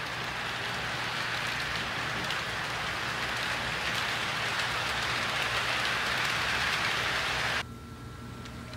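HO scale freight cars rolling past on sectional track: a steady rushing rattle of metal wheels on rail, growing a little louder, that cuts off abruptly near the end, leaving a quieter hum.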